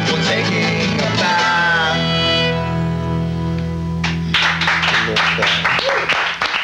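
Acoustic rock band with mandolin, acoustic guitar and violin singing the last line of a song and holding the final chord, which stops about four seconds in. Applause follows.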